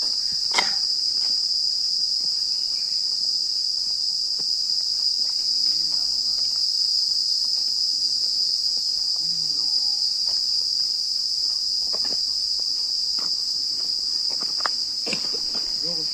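A chorus of insects keeping up one steady, high-pitched drone without a break, which sounds like soothing music. A few faint clicks sit beneath it.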